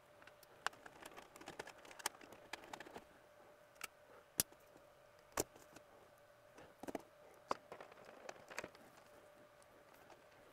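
Irregular light clicks and taps of hand work on the wiring in a circuit breaker panel, with a couple of sharper clicks about halfway through, over a faint steady hum.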